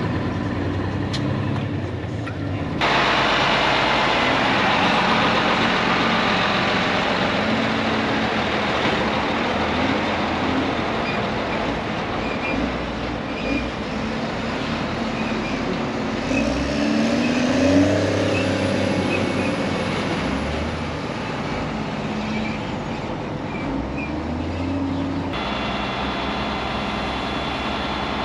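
Heavy diesel truck engines running, with one engine revving up in pitch about two-thirds of the way through. The sound changes abruptly a few seconds in and again near the end.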